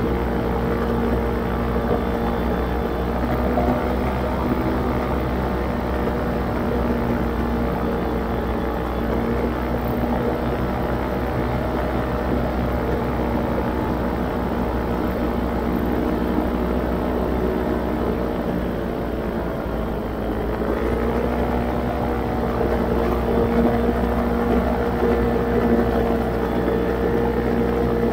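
Small camera drone's propellers whirring steadily in flight, the pitch shifting up slightly about two-thirds of the way through.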